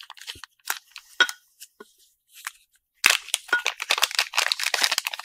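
Clear plastic zip bag being handled and opened: scattered light crackles, then dense crinkling from about three seconds in.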